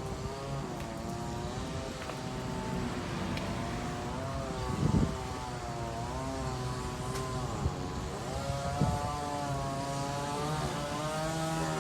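A steady engine drone whose pitch slowly wavers up and down, with a couple of brief thumps about five and nine seconds in.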